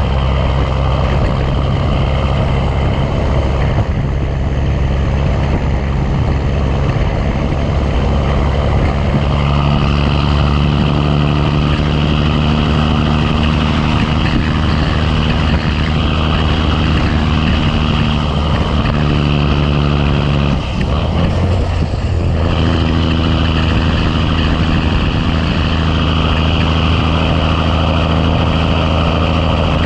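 Big Cam Cummins inline-six diesel in a 1986 Ford LT9000 pulling under load while hauling a truck. The engine note climbs slowly, breaks off briefly about two-thirds of the way through as it shifts gear, then pulls steadily again at a lower pitch.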